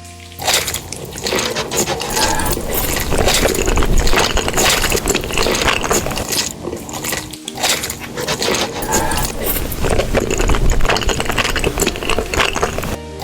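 Close-miked eating sounds: a dense run of small wet clicks and squelches from chewing, with a brief pause about halfway.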